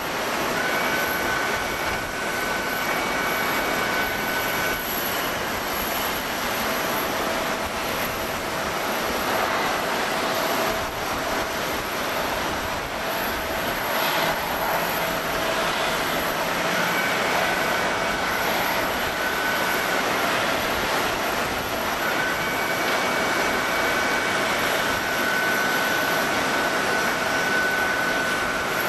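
Boeing 777-300ER's GE90 turbofan engines running at taxi power: a steady jet roar with a high whine that fades and returns several times.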